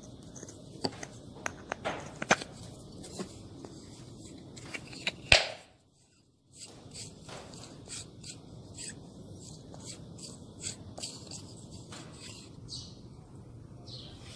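Small wooden workpieces handled on a plywood workbench: scattered light taps and clicks of wood knocking against wood and metal, with one sharp knock about five seconds in, followed by a moment of silence.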